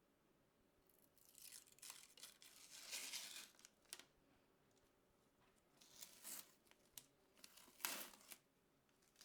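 Faint packaging being torn and crinkled by hand: a long rustling tear, then two shorter bursts near the end, with a few light clicks between.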